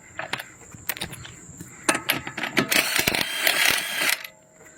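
Cordless 20 V impact wrench hammering for about two seconds in a loud, rapid rattle, with a few clicks and knocks of handling before it.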